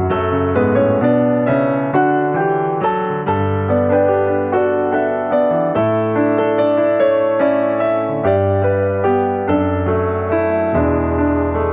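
Background music: a piano or electric-piano tune with a steady pulse of notes over held bass notes.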